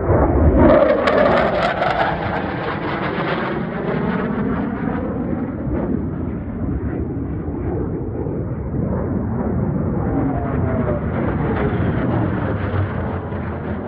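F-35 fighter jet flying past: a loud jet roar that is loudest one to three seconds in, then a continuous rumble with a sweeping tone in it again near the end.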